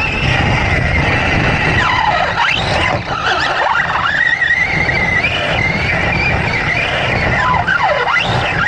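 Large-scale RC trophy truck heard from its own cockpit: its motor whine rises and falls with the throttle, dropping sharply and climbing back several times, over a steady rumble of the chassis and tyres on dirt.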